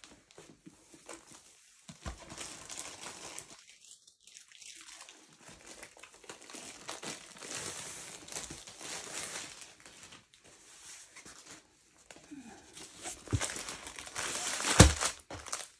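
Clear plastic packaging of a diamond painting kit crinkling and rustling as it is handled, in irregular spurts, with a few louder, sharper crackles near the end.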